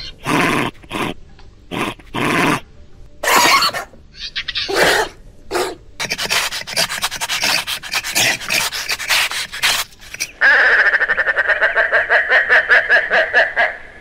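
Reconstructed Utahraptor call: a string of short breathy hisses and snorts, then a fast chattering run of pulses. About ten seconds in it turns into a rapid pulsed, trilling call.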